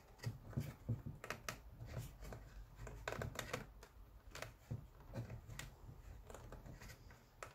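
Faint, irregular clicks and scrapes of lace being pulled through punched holes in a leather scabbard clamped in a wooden stitching horse, as a double whip stitch is worked along the edge.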